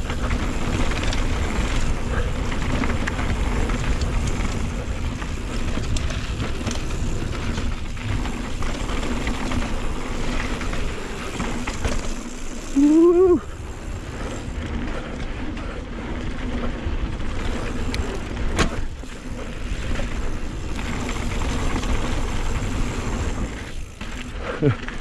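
Full-suspension mountain bike running fast down a dirt downhill trail, heard from a chin-mounted camera: steady rumble of wind and tyres with knocks and clatter from the bike over bumps. About halfway through, a short rising pitched sound is the loudest thing.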